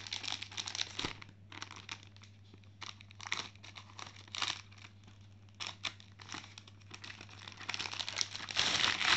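Packaging crinkling and rustling in irregular bursts as a keyboard is pulled out of its box, loudest near the end.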